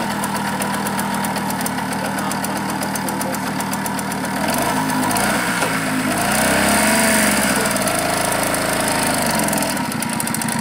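Tunturi Pappa moped's small two-stroke engine running steadily at idle. About six seconds in, the revs rise and fall, and the engine keeps running as the moped moves off.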